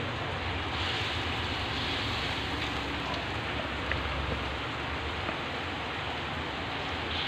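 Steady hiss of heavy rain mixed with corn fritters sizzling in a wok of hot oil, with a few faint pops.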